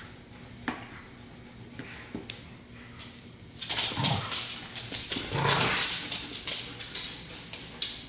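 Pit bulls and a Malinois play-growling and snarling in a tug-of-war over a toy, loudest in two rough growls about four and five and a half seconds in. A few sharp knocks come before.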